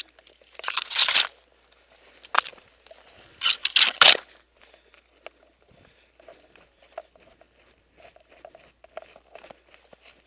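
Dry brush and branches scraping and crunching against the player and camera as he pushes through dense scrub. There are a few loud rustling bursts in the first four seconds, then softer, scattered rustling.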